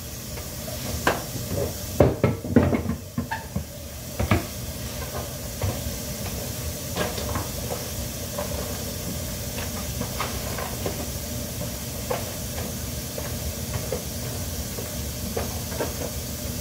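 Kitchen faucet running into a bowl in the sink, a steady hiss of water. In the first few seconds a handful of knocks and clatters of kitchenware, then light scattered clicks.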